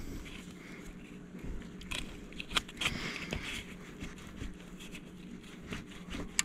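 Wrench working on the alternator's wiring terminal: scattered small metal clicks and scrapes, over a faint steady low hum.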